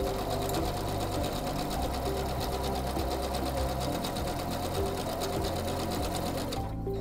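SINGER C430 computerized sewing machine sewing a feather stitch at a steady speed, its needle running in a rapid, even rhythm. It stops just before the end.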